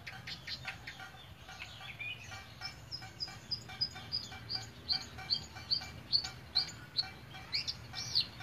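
Caged long-tailed shrike (cendet) singing a fast, regular string of short high chirps, about three a second, growing louder from about halfway through. The title credits the song with mimicked tree-sparrow fighting calls and kingfisher calls.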